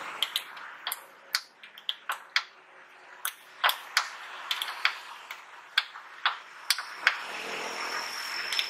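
Sharp metallic clicks and taps of a wrench being fitted and worked on the tailgate gas strut's mounting bolt, irregular and uneven in loudness. About seven seconds in a steady high-pitched whine starts and runs on.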